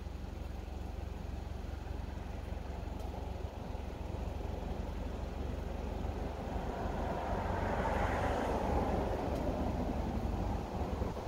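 A passing vehicle's tyre and engine noise, swelling about two thirds of the way through and then fading, over a steady low rumble of wind on the microphone.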